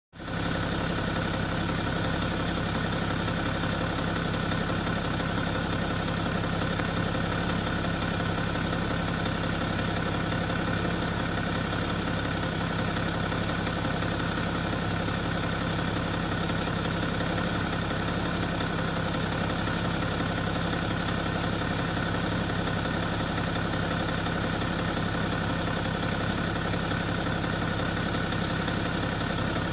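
BMW M57N2 straight-six turbodiesel running at a steady speed, with a bad noise that the owner suspects comes from the timing chain.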